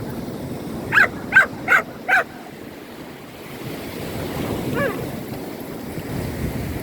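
A dog barking, four quick yips about a second in and a fainter one near five seconds, over the wash of sea waves breaking on a beach, which swells in the second half.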